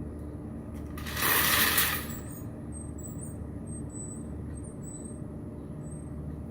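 A brief mechanical rattle about a second in, from shopping-cart wheel parts being handled, over a steady low hum.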